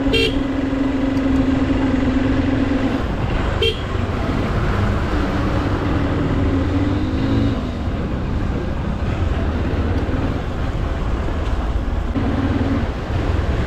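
Motorcycle running along a road, its engine note and wind rush steady, with two short horn beeps, one just after the start and another near four seconds in.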